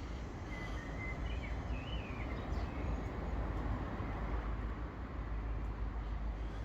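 Steady outdoor background noise with no one speaking, and a few faint bird chirps in the first couple of seconds.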